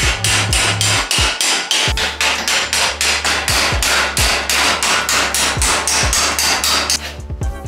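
Hammer striking steel parts of a welded tractor frame: a fast, steady run of sharp metallic blows, about five a second, stopping shortly before the end.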